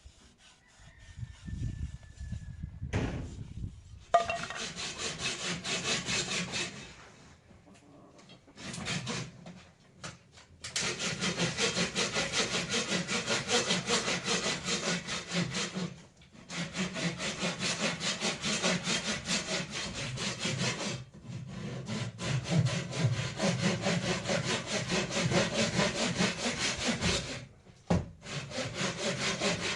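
Wood being sawn by hand: runs of quick, even saw strokes lasting several seconds each, broken by short pauses.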